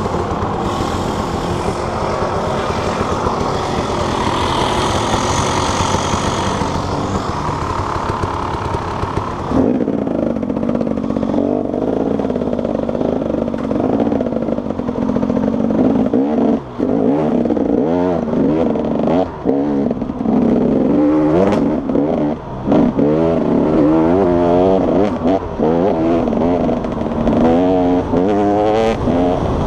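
Enduro dirt bike engine held at high, steady revs with a hiss for the first third. It then revs up and down over and over as the bike rides off along the muddy track, with occasional knocks and clatter.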